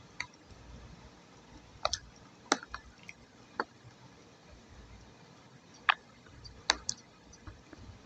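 Soft wet clay paste giving short, sharp, sticky clicks and smacks at irregular intervals, about ten in all, in pairs and singles, the loudest a little over two seconds in and again near six seconds.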